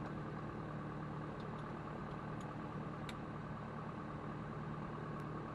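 Light aircraft's carburetted piston engine idling steadily, its propeller turning slowly, heard from inside the cockpit as an even hum.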